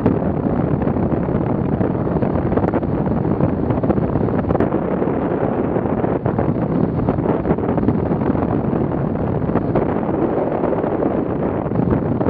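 Wind noise from airflow over the microphone of a camera mounted on a hang glider in flight: a loud, steady, low rush.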